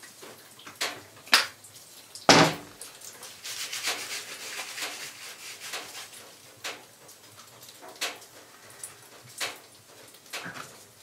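Sharp clicks and knocks of a plastic wash bottle being handled, the loudest a thump about two seconds in. Then a few seconds of hands scrubbing soapy hair, a soft rubbing hiss.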